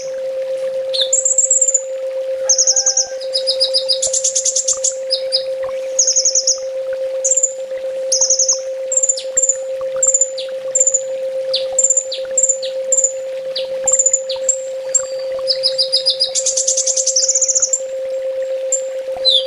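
Kolibri ninja (Van Hasselt's sunbird) singing: high, rapid trills and short sharp downward-sliding notes, with a buzzy rattling phrase about four seconds in and again near the end. A steady low hum runs beneath the song.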